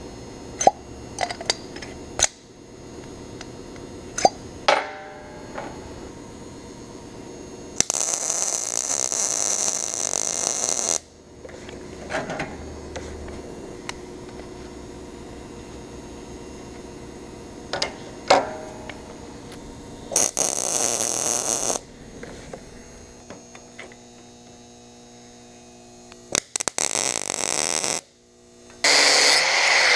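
MIG welder laying short tack welds on steel: three bursts of crackling hiss lasting a second or three each, with sharp metal clinks and knocks from handling the parts in between. Near the end an angle grinder starts up.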